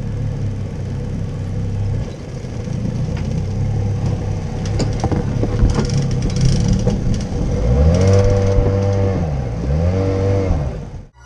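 Engine running steadily, then revved up and back down twice near the end, with a few knocks and clatters in between.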